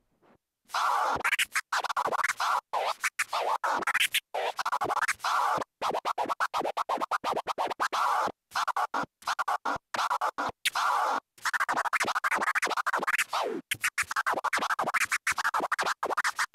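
Vinyl record scratching on a turntable, the sound chopped on and off rapidly by the mini Innofader crossfader of a Numark Scratch mixer. It starts about a second in after a brief silence and runs as a string of short, sharply cut scratch phrases.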